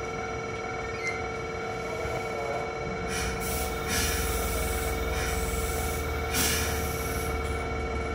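Hankyu 3000 series electric train at the platform with its onboard equipment humming steadily; about three and a half seconds in a low rumble comes up as it begins to pull away, with several short hisses of air.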